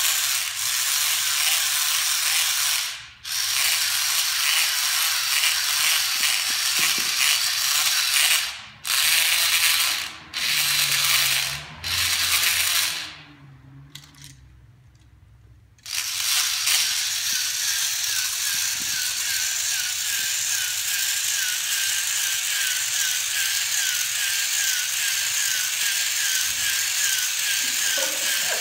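Small electric motors and plastic gearboxes of motorized Zoids model robots whirring and grinding. The sound stops and restarts several times, with short bursts about 9 to 13 seconds in and a pause of about three seconds. It then runs steadily to the end with a faint, fast, repeating tick.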